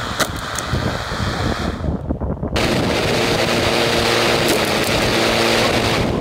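An upside-down lawn mower running with its blade spinning, and a few sharp clacks in the first second as the blade strikes an iPad Pro dropped into it. About two and a half seconds in, the running becomes louder and steadier.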